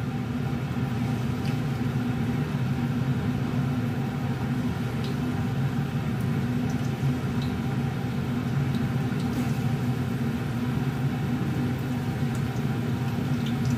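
Kitchen range hood exhaust fan running with a steady hum, over the hiss of fish fillet pieces frying in hot oil, with a few faint utensil clicks.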